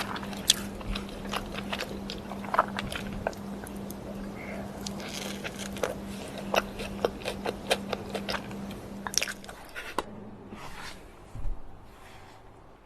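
Close-miked eating: crunchy bites and chewing, with many short, sharp crackles. A steady low hum underneath stops about ten seconds in.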